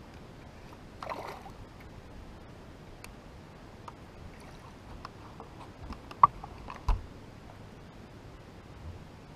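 A hooked bass splashing briefly at the surface about a second in, then scattered small clicks. A sharp knock and a low thump follow about a second apart as the fish is brought aboard the boat.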